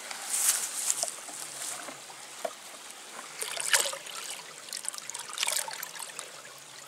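Water pouring and splashing from a tipped plastic bucket into a pond as caught fish are released, with a few louder splashes over a steady trickle.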